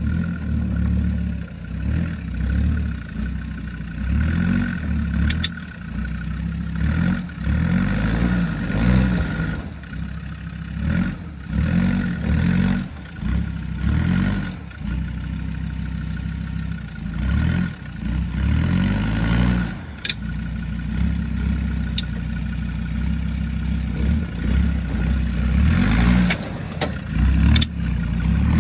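Land Rover Discovery Td5's five-cylinder turbodiesel engine revving in repeated bursts under load as the truck crawls over rocks, with a few sharp knocks from stones and the chassis.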